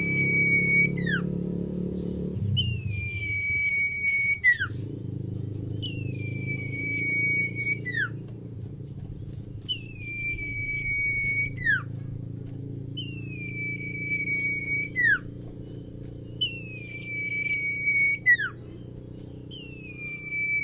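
A male sertu bird repeating one long steady whistle about every three and a half seconds, each note rising at the start and ending in a quick downward slide. A steady low hum runs underneath, louder in the first two seconds.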